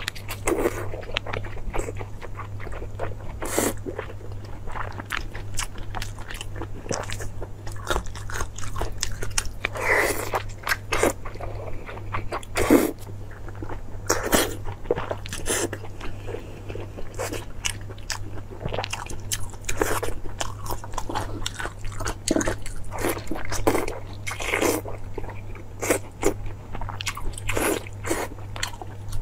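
Mouth sounds of someone biting and chewing soft braised pork intestine and trotter: irregular wet smacks and clicks, several a second.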